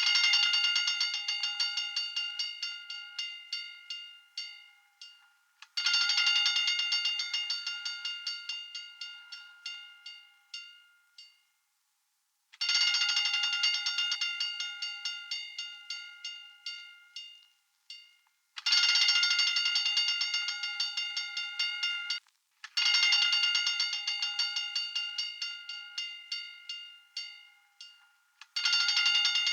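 Hand-cranked fire alarm bell ringing in repeated spells of rapid strikes. Each spell starts loud and dies away over four to six seconds as the strikes slow, with a short gap before the next. About six spells are heard.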